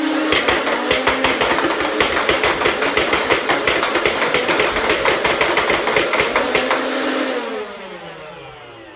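Two Nerf Rival Nemesis flywheel blasters firing foam balls in rapid full-auto over the hum of their spun-up motors. After about seven seconds the shots stop, and the motors wind down with a falling whine.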